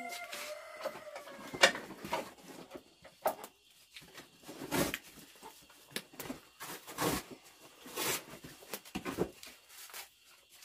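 A rooster's crow trailing off at the start, then scattered short knocks and scuffs, the sharpest about a second and a half in.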